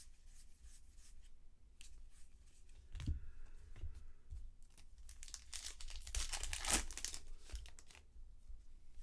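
A trading card pack's wrapper being torn open and crinkled, loudest in a burst of crackling a little past the middle, with a dull thump about three seconds in.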